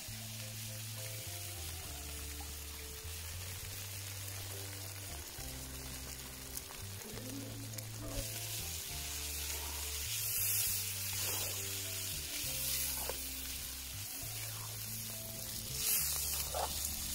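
Beaten eggs with greens frying in a cast-iron pan, a steady sizzle that grows louder about halfway through, with a metal spoon stirring and scraping the pan now and then. Background music with a bass line plays over it.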